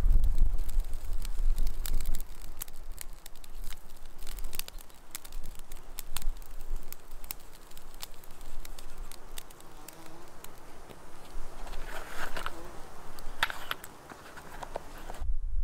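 Wood campfire crackling, with frequent irregular sharp pops.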